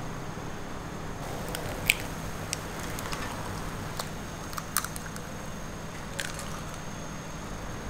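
Eggs cracked onto a crepe on a griddle: a few sharp shell cracks and clicks, the loudest about two seconds in and another pair near the five-second mark, over a steady low hum.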